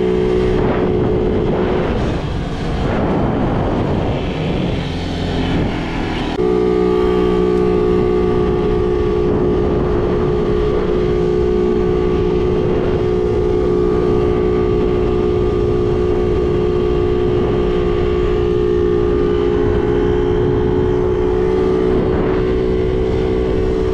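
50cc moped engine running at a steady cruising speed, a constant drone over rough wind noise on the microphone. About two seconds in, the engine note fades for a few seconds, then comes back at about six seconds and holds steady.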